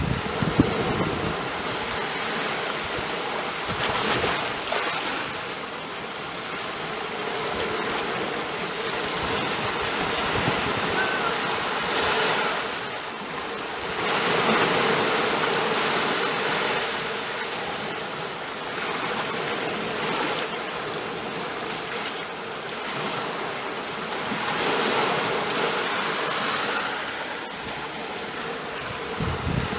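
Sea waves washing onto a shore, the rush of water swelling and falling back every few seconds.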